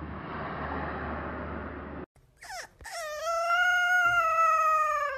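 A dog howling: a short high call, then one long high howl held for about two seconds that drops in pitch as it ends. Before the howl there is a steady rushing hiss for about two seconds, which cuts off.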